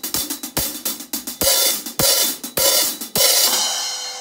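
Zildjian A New Beat hi-hat cymbals played with drumsticks in a drum beat: quick closed chicks, opened several times into longer washes, the last one ringing out near the end. Kick drum strokes sound underneath.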